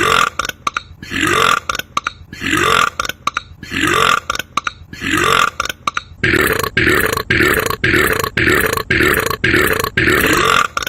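A man's loud burps repeated at an even pace, each rising in pitch, about one a second at first, then about two a second from about six seconds in.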